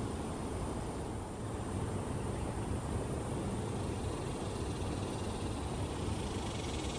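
Steady low rumble of outdoor background noise, even throughout, with no bird calls.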